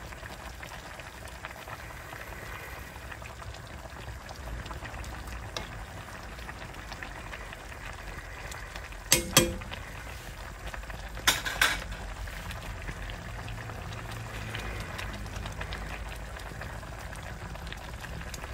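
A pot of chicken glass-noodle soup simmering on a gas burner, a steady bubbling, as it is stirred with a slotted spoon. Sharp knocks of the spoon against the pot about nine seconds in and twice more about two seconds later.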